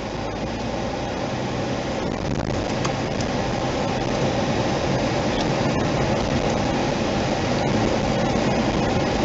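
Steady road and engine noise heard inside a moving car's cabin, growing gradually louder.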